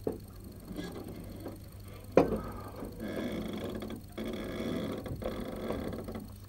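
Old wooden gate being pushed open: a sharp knock about two seconds in, then the hinges and boards creak and scrape in three stretches.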